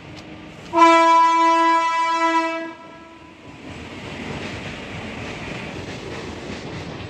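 A loud, steady horn blast starting about a second in and lasting about two seconds on one held pitch, followed by a steady wash of background noise.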